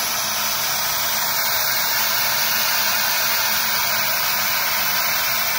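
Steady rushing air noise from running workshop machinery, with a faint low hum under it. It holds at one even level throughout.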